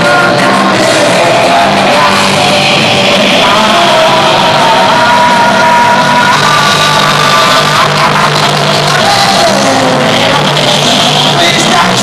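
Amateur rock band playing live: electric guitar, drums and keyboard, loud, with a man singing into a microphone.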